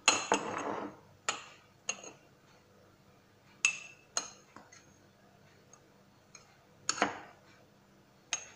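A metal utensil clinking against a drinking glass as flour is scooped and packed into it to measure a cup, giving several sharp clinks at irregular intervals. A short scraping rustle comes in the first second.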